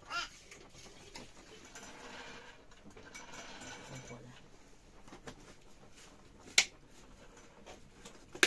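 Light handling knocks and clicks in a small room, the loudest a single sharp click about six and a half seconds in, over a faint background hiss.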